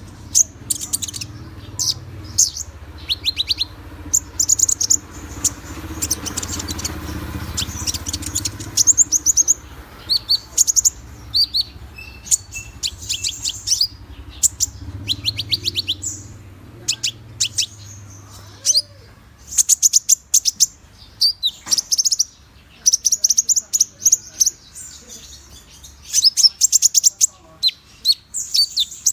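Konin (kolibri ninja sunbird) song: short bursts of rapid, high, thin chirping trills, repeated over and over, with a low hum underneath that fades out about two-thirds of the way through. It is a lure recording, played to set off caged konin singing.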